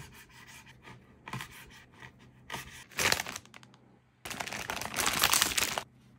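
A knife knocks once on a wooden cutting board as it cuts through pancetta. Then a plastic frozen-pizza bag crinkles and is torn open, with a loud tearing rush of about a second and a half near the end.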